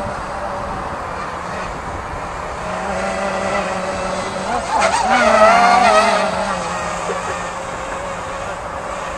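Quadcopter's electric motors and propellers buzzing overhead, swelling to their loudest about five seconds in with a wavering, bending whine as the throttle changes during a pitch flip, then settling back to a steady buzz.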